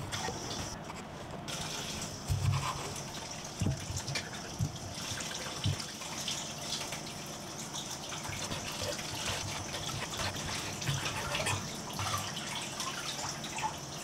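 Chef's knife cutting cherry tomatoes and basil on a wooden cutting board: a handful of soft knocks as the blade meets the board, over a steady background hiss.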